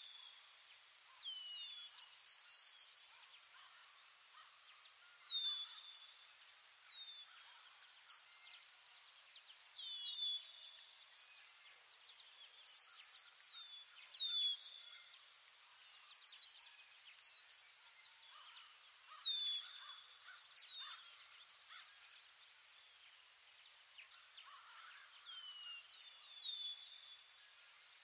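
Forest ambience: an insect chorus trills steadily in a high, evenly pulsing band. Birds call over it with short falling chirps, often in pairs, every second or two.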